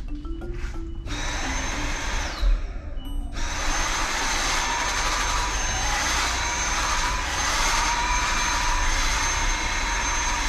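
Vacuum cleaner running with a steady rushing noise and a high whine, cutting out briefly about two and a half seconds in and starting again about a second later.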